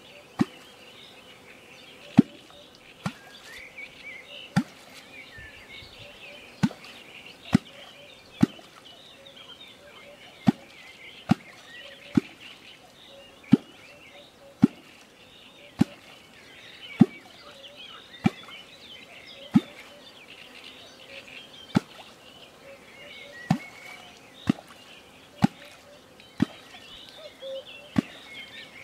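A hand-held kwok (catfish-calling tool) is struck into the water surface over and over, about every one to two seconds. Each stroke gives a sharp, deep pop or gulp, the sound used to call catfish.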